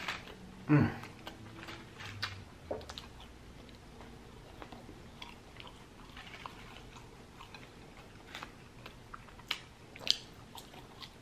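Close-up chewing of a lamb gyro, with soft wet mouth clicks and smacks. A short vocal sound falling in pitch comes about a second in, and a sharper bite into fries comes near the end.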